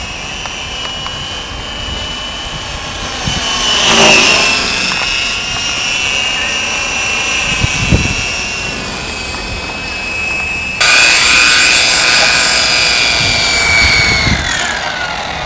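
Lite Machines Corona fixed-pitch RC helicopter, its Mega 16/15/4 brushless motor and rotor giving a steady high whine. The pitch swoops as it passes about four seconds in. After a sudden jump in loudness near eleven seconds, the whine drops in pitch near the end.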